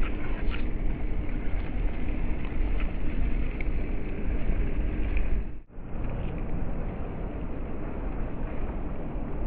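A small RC crawler truck's electric motor and gearbox running steadily as it crawls through tall grass, with a faint steady hum in the first half. The sound drops out for an instant just past halfway and picks up again.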